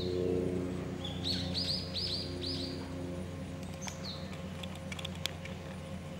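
A quick run of about five high, falling chirps, then a single chirp a little later, over a steady low hum.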